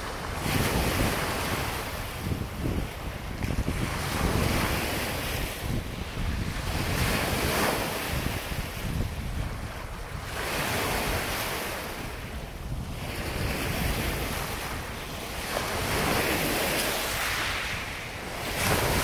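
Small lake waves breaking and washing up a pebble-and-sand shore, the surf swelling and fading every few seconds, with wind buffeting the microphone.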